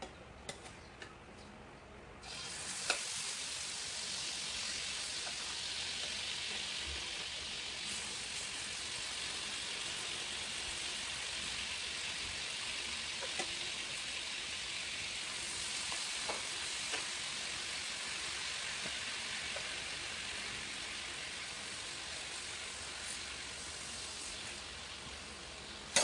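Fish fillets sizzling in hot butter and olive oil in a frying pan: a steady hiss that starts abruptly about two seconds in, as the first pieces go into the fat, with a few faint clicks along the way.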